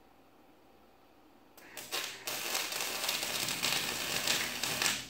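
Electric arc welder laying a weld: a couple of short sputters about one and a half seconds in as the arc strikes, then a steady crackling arc for about two and a half seconds that cuts off just before the end.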